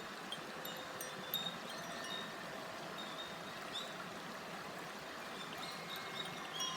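Koshi chime, a bamboo wind chime with tuned metal rods, ringing in light, scattered strikes: a cluster about a second in, one near four seconds, and more near the end. Under it runs the steady rush of a shallow murmuring stream.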